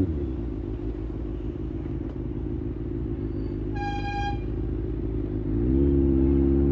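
Kawasaki ZX-6R's inline-four engine drops from a rev to a low, rough idle. A vehicle horn sounds once, briefly, about four seconds in. Near the end the engine revs up again as the bike pulls away.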